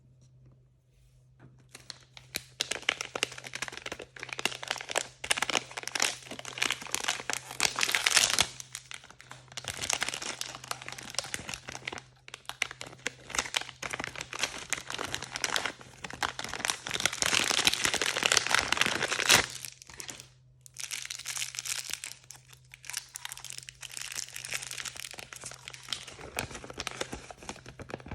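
Blind-bag packaging being crinkled and torn open by hand: a dense run of crackling starts about two seconds in, with a brief pause a little past the middle. A faint low hum runs underneath.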